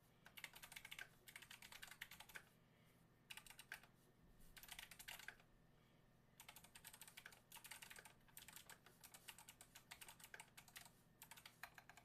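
Typing on a GMMK mechanical keyboard fitted with Kailh Box Jade clicky switches and foam padding in the case: fast runs of key clicks in bursts with brief pauses.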